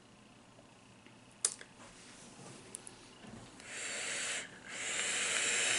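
A sharp click, then air hissing as a person draws on an e-cigarette mod in two pulls: a short one about three and a half seconds in and a longer one from about five seconds in.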